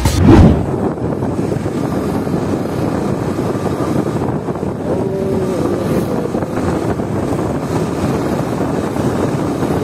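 KTM motorcycle on the move, its engine running under a steady rush of wind on the microphone, with a brief loud swell right at the start.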